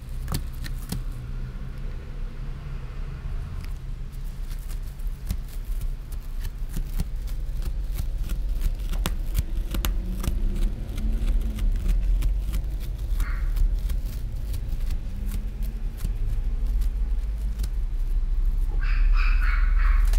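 Pet shop room ambience: a steady low hum with scattered clicks and rustles as a kitten scrambles on artificial turf. Near the end a dog barks several times in the background.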